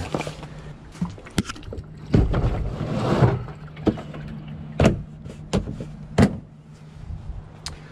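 Gear being handled in a 4WD's rear cargo area: a boxed bottle jack is moved about on the aluminium tread-plate top, with a scraping rustle for about a second, then several sharp knocks and clicks. A steady low hum runs underneath.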